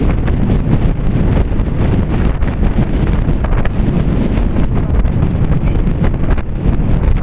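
Wind buffeting the camera's microphone: a loud, steady low rumble with irregular crackles.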